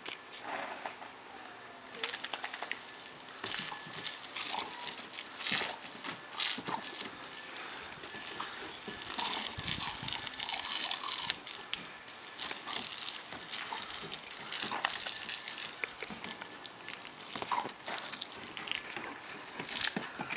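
Garden-hose spray hissing and splattering onto a wet wooden deck. Irregular splashes and clicks break in as a Weimaraner snaps and laps at the stream.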